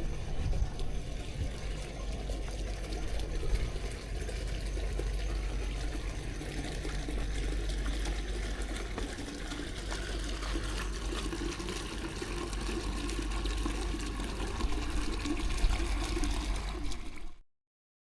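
Steady vehicle noise heard from inside a moving car, with a low hum under a hiss of tyres on a wet road. It cuts off abruptly near the end.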